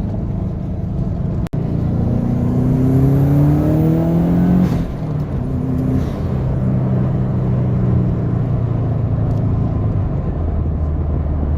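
Turbocharged flat-four engine of a GC8 Subaru Impreza WRX accelerating hard at about 14 psi of boost. The revs climb for about three seconds, drop suddenly at a gear change, then the engine pulls on steadily.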